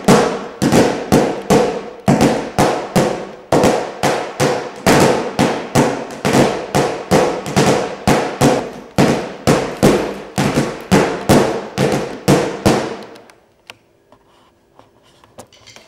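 A large drum beaten in a steady beat of loud strikes, about two to three a second, each ringing briefly; the drumming stops about 13 seconds in.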